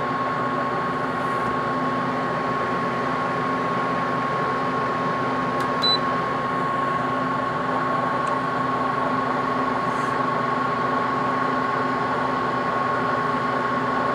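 Haier 5,000 BTU window air conditioner's fan running steadily on high cool, with a steady whine and hum; the compressor has not yet kicked on. A short electronic beep sounds about six seconds in.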